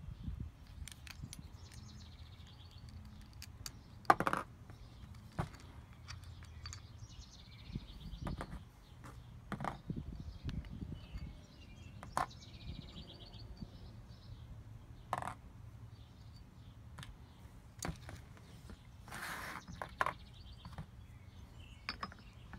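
Handling of a geared tripod head and a metal quick-release plate on a tabletop: scattered clicks and knocks, the loudest about four seconds in. Faint bird chirping can be heard behind them.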